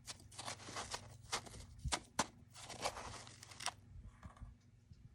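Crunching of soft freezer frost: a rapid run of crisp crackles that stops about three and a half seconds in.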